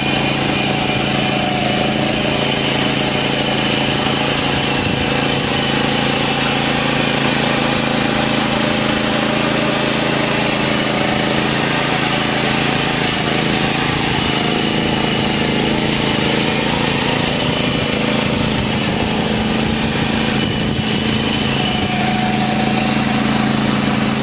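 BCS 740 two-wheel tractor's petrol engine running steadily under load while it drives a 75 cm lawn scarifier attachment across grass.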